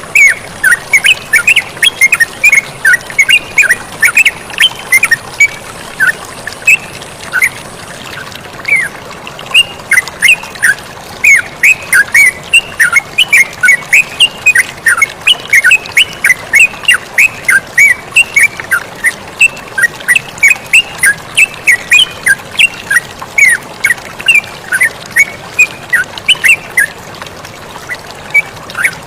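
Yellow-vented bulbuls (terucukan) singing actively in a rapid, continuous string of short chirping notes, about three to four a second, over the steady sound of running water.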